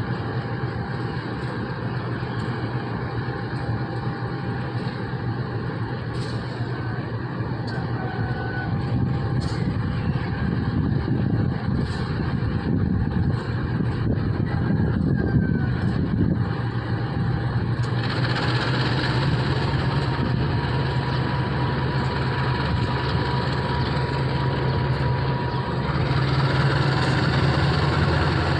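Diesel locomotive engine running steadily with a low hum; about eighteen seconds in a louder hiss joins it.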